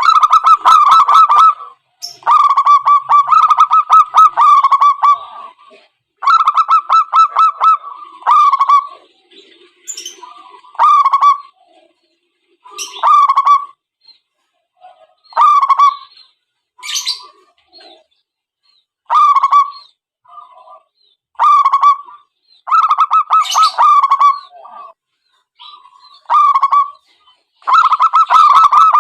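Zebra doves cooing: repeated phrases of rapid, stuttering coos pitched around 1 kHz, some short and some running about two seconds, with brief pauses between.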